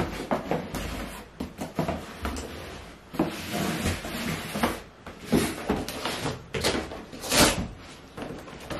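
A large cardboard shipping box being handled and worked open on the floor: a run of irregular cardboard scrapes, rustles and knocks, a few louder scrapes in the second half.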